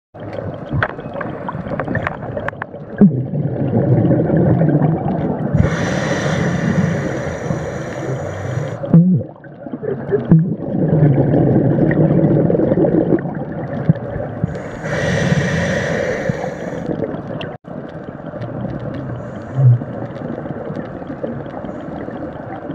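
Scuba diver breathing through a regulator underwater: two long hissing inhalations and gurgling bursts of exhaled bubbles.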